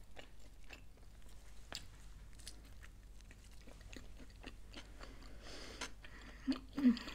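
Close-miked chewing of a soft quesadilla: faint wet mouth clicks and smacks, with a couple of short louder mouth sounds near the end.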